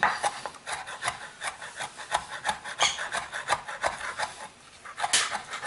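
Knife rapidly chopping fresh cilantro on a wooden cutting board, quick rocking strokes tapping the board about five or six times a second. The chopping pauses briefly near the end, then one louder stroke.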